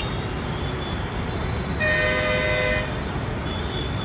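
A vehicle horn sounds once, a single honk of about a second about two seconds in, over a steady low rumble of street traffic.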